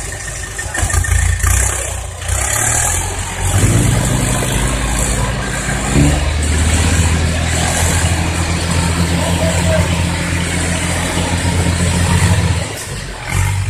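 Hino dump truck's diesel engine running. A few seconds in it is raised to a steady higher speed while the hydraulic hoist tips the dump bed up, then it drops back near the end.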